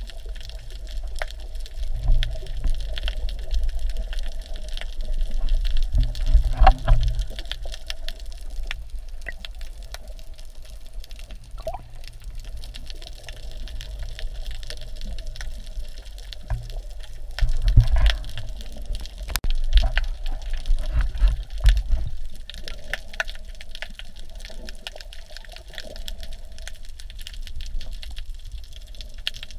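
Water sloshing and moving, heard by a GoPro held underwater: a muffled wash with scattered clicks and low rumbling surges, strongest a few seconds in and again a little past the middle.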